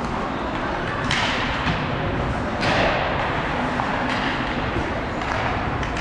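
Ice hockey game sounds in an arena: thuds over a steady rumble, with two louder scraping hisses, like skates stopping on the ice, about one and two and a half seconds in.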